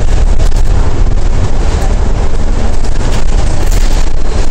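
Alexander Dennis Trident E500 double-decker bus with a Cummins ISL8.9 diesel on the move, heard from inside: a loud, steady low rumble of engine and road noise.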